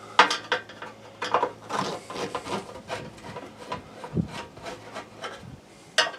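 Screwdriver backing out screws from an RV furnace's burner chamber cover: irregular metal scraping and rubbing, with scattered sharp clicks.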